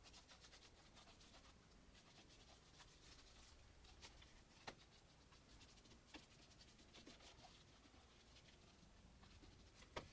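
Faint scratchy brushing of a loaded paintbrush stroking acrylic paint across a stretched canvas, with three light taps, the sharpest near the end.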